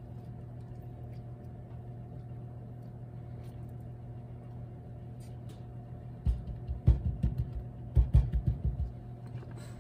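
Steady low hum from a kitchen appliance, with a cluster of dull low knocks about six to nine seconds in as the baking tray is handled on the stone counter.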